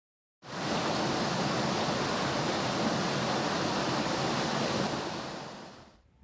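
Rushing river water: a dense, steady rush that comes in about half a second in and fades away near the end.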